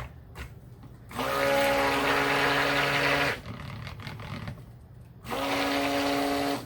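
Stick blender pulsed in bursts of about two seconds, a steady motor whine switching on and off, blending cold-process soap batter.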